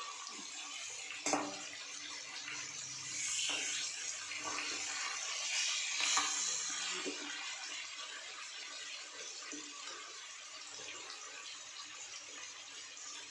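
Fish pieces sizzling as they shallow-fry in oil in a metal kadai, a steady hiss. A steel spatula knocks and scrapes against the pan as the pieces are turned, with a sharp click about a second in.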